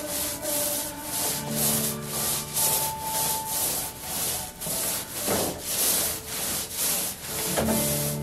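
Paint roller on an extension pole rolling wet paint onto a wall in quick back-and-forth strokes, about two strokes a second.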